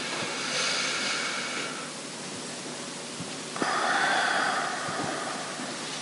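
Two audible breaths close to a microphone, one about half a second in and a longer one starting about three and a half seconds in, over faint steady room hiss.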